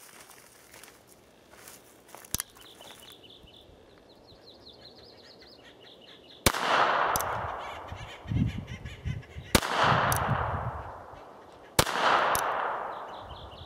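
Three shots from a North American Arms mini revolver, each followed by a long echo that dies away over about two seconds; the first comes about six and a half seconds in, the next two roughly three and two seconds apart. Before the shooting, a bird chirps a quick run of short notes.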